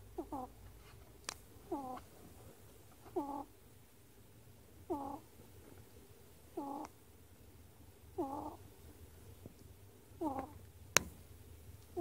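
A sleeping ferret snoring: seven short, pitched snores, about one every one and a half seconds. A sharp click about eleven seconds in is the loudest single sound.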